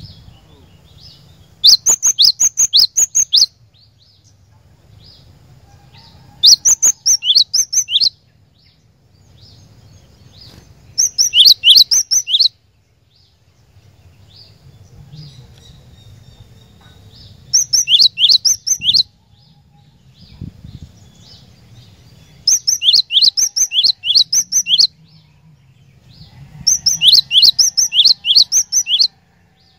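Cinereous tit (glatik batu) singing: six bursts of quick, sharp, high repeated notes, each burst about a second and a half long, coming every four to six seconds. A faint low hum lies under the gaps.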